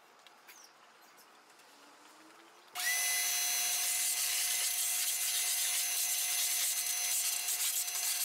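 Wet/dry shop vacuum switched on about a third of the way in, its motor spinning up with a brief rising whine and then running steadily with a constant whining tone over the rush of air as the floor nozzle sucks dust off the pavement.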